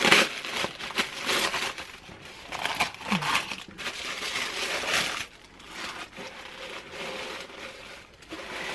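Tissue paper crinkling and rustling as it is unfolded and pulled out of a gift box, then the crackle of shredded-paper packing filler being handled. The rustling comes in uneven bursts, loudest in the first couple of seconds.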